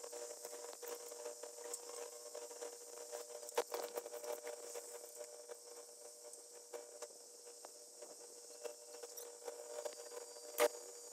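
A heavy locomotive creeping onto a low-loader trailer: a steady hum with scattered metallic clicks and knocks from its wheels and the loading gear, and one sharp clank near the end.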